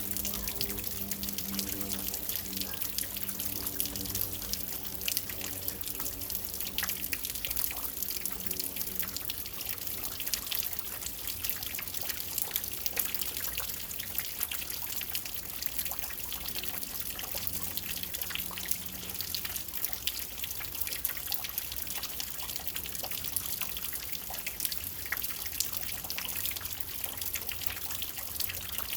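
Steady rain falling, with many separate drops and drips ticking close by. A faint low hum sits under it for roughly the first nine seconds.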